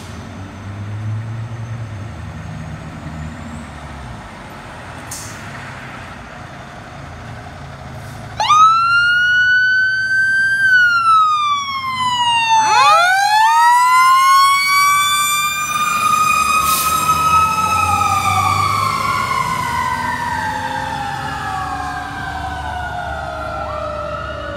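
Fire engine's heavy diesel engine running low, then its siren cuts in suddenly about a third of the way through with a rising and falling wail. A second siren tone winds up from low pitch a few seconds later, and the two overlap in long, slowly falling wails to the end.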